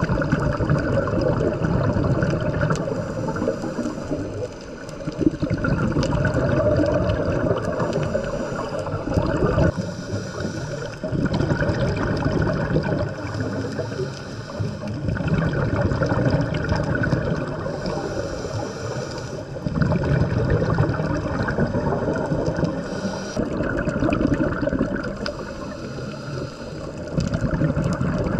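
Scuba breathing heard underwater: exhaled bubbles gurgling from a diver's regulator, swelling and fading in rounds every few seconds.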